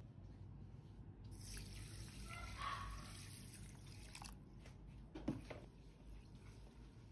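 Water poured from a container into a wooden bowl of raw long-grain rice, splashing for about three seconds with the pitch rising as the bowl fills. This is rinsing the rice before cooking. A single knock follows about a second later, then faint swishing as a hand stirs the rice in the water.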